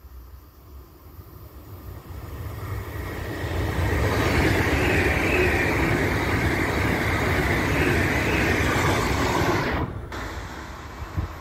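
SBB electric passenger train built by Stadler passing close by, with wheel-on-rail rumble and hiss. It builds over the first few seconds, holds loud and steady, and drops off sharply near the end.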